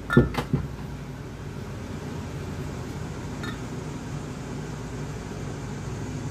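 Steady hum of an electric fan in a small room. A few sharp knocks come in the first half second as the hand injector is set against the clamped aluminium bait mold, and there is a faint tick about three and a half seconds in.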